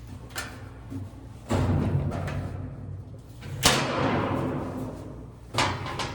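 Several clunks and thuds from the sheet-metal parts of a top-load washer being handled and pulled off during disassembly, the loudest about halfway through with a ringing tail, over background music.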